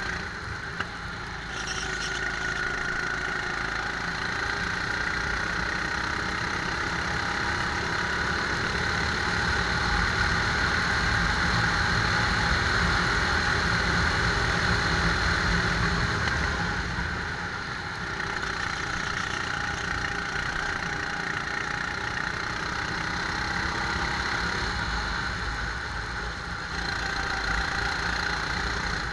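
Rental go-kart engine running under throttle, heard from on board the kart: the engine note is loudest mid-way along a straight and drops twice as the kart comes off the throttle for corners. A single sharp click about a second in.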